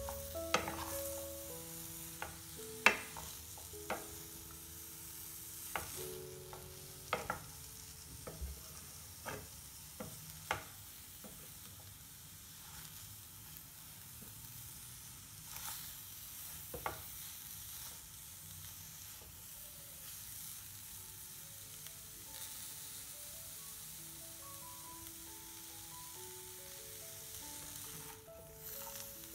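Shredded cabbage sizzling as it fries in a metal pan and is stirred with a wooden spatula, which knocks sharply against the pan about ten times, mostly in the first half.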